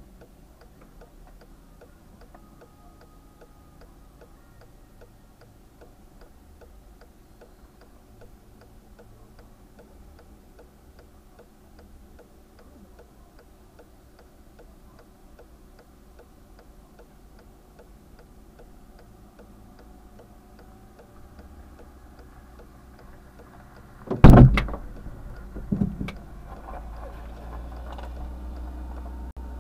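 Even ticking of the stopped Skoda Fabia's hazard-light flasher after a crash. Near the end come two loud bangs about a second and a half apart, and after them the background noise is louder.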